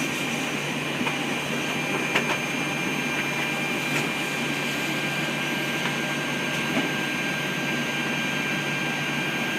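Steady hum and hiss of a Boeing 737-800 flight deck with the engines running at idle and the air conditioning blowing, with a faint steady whine and a few faint clicks.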